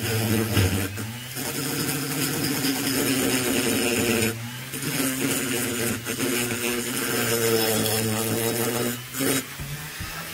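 High-speed handheld rotary tool with a coarse sanding drum running steadily and grinding inside the transfer port of an Echo CS-670 chainsaw cylinder. The tool's hum and the grinding hiss dip briefly three times, about a second in, near the middle and near the end.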